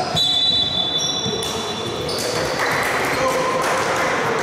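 A referee's whistle blown once, a shrill steady tone lasting about a second, then basketball shoes squeaking on the hall floor among players' voices.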